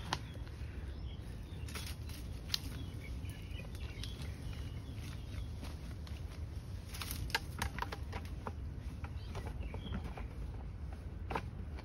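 Faint steady low rumble of wind on the microphone, with scattered soft knocks and scrapes as a plastic bucket is kicked and worked down into a hole in the soil, a cluster of them about seven seconds in and another near the end.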